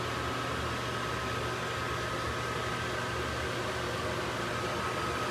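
Steady hum and hiss of air-moving machinery, like a fan or ventilation blower, with a faint steady high whine over it.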